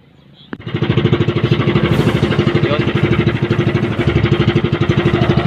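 A small boat engine starts up about half a second in. It quickly settles into a loud, steady run with a rapid, regular beat.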